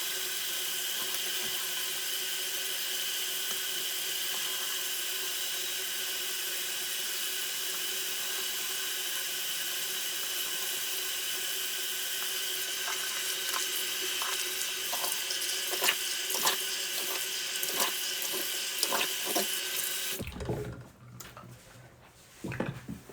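Bathroom sink tap running steadily while a face is washed by hand, with splashing from cupped hands in the later part. The water cuts off suddenly about twenty seconds in.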